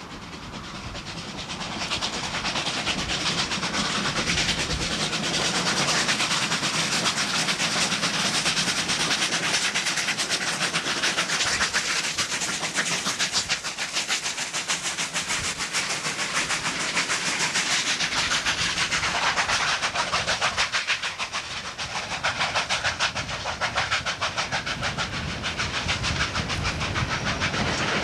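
Steam-hauled train running past, swelling over the first couple of seconds into a fast, even beat with steam hiss. The beat eases briefly about two-thirds of the way through, then picks up again.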